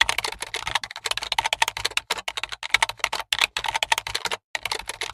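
Rapid computer-keyboard keystrokes, a typing sound effect that goes with on-screen text being typed out letter by letter, broken by a few short pauses.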